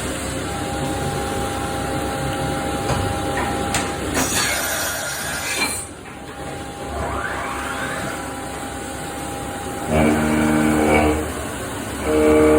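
CNC machining center milling SS400 steel: a steady cutting whine with a hiss partway through, then a rising whine, and near the end loud humming bursts as the cutter bites into the metal.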